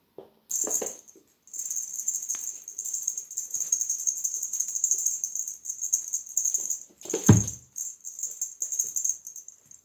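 A cat's string wand toy rattling and jingling as it is shaken and dragged, in short stop-start spells, with one loud thud about seven seconds in as the kitten pounces onto the floor.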